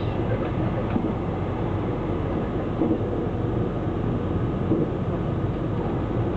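Passenger train running at speed, heard from inside the car: a steady low rumble with a few faint knocks.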